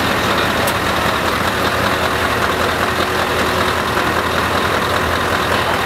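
Heavy truck's diesel engine idling steadily close by.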